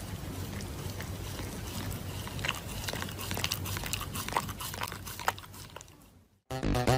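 A Shiba Inu chewing and biting on a paper cut-out mask, with small crackles and clicks over a steady low hum. It fades out near the end, and electronic music starts just before the end.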